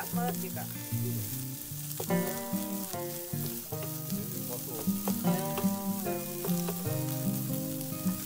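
Scrambled egg and bacon sizzling in a frying pan while a wooden spatula stirs and scrapes through them, with background music playing over it.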